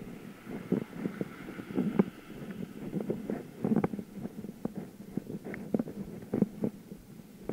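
Irregular knocks and rattles of a bicycle ride picked up through the camera's mount, with the bike jolting over uneven street paving. A faint steady hiss runs under it for the first few seconds.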